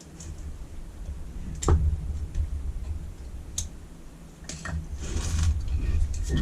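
Hand tools and metal carburettor parts clicking and knocking during disassembly: two sharp clicks, about one and a half and three and a half seconds in, a scraping rustle around five seconds in, and a low rumble of handling throughout.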